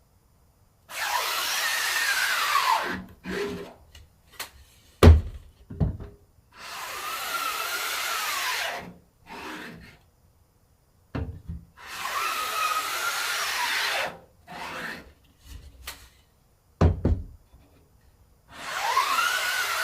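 A tool is drawn slowly across a stretched silkscreen mesh in repeated scraping strokes. Each stroke lasts about two seconds and has a squeak that rises and then falls. Sharp knocks come between the strokes, and the fourth stroke starts near the end.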